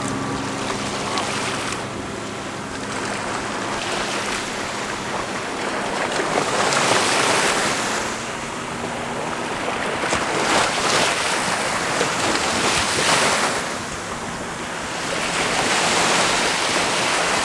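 A speedboat's engine drones close by in the first couple of seconds, then drops away under a rushing hiss of wind and surf that swells and eases several times.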